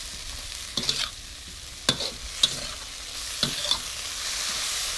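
Water spinach sizzling in a hot metal wok as it is stir-fried, with a metal spatula tossing it and striking the wok in several sharp clinks.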